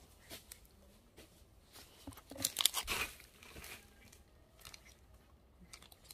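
Plastic snack wrapper crinkling and tearing in the hands, with crunchy chewing. The crackling is loudest from a little past two seconds in for about a second and a half.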